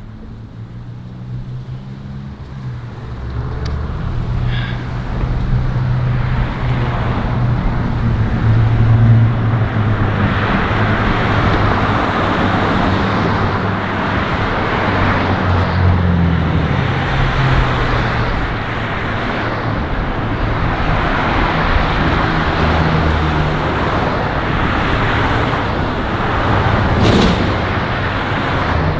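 Busy road traffic close by: a steady wash of tyre and engine noise with low engine hum, building up over the first few seconds and then holding.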